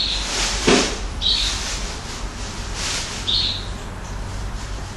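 Handling sounds of rubber bands being worked on a plastic Rainbow Loom hook: faint rustling and one sharp tap less than a second in, with three short high squeaks spaced a second or two apart, over a steady low hum.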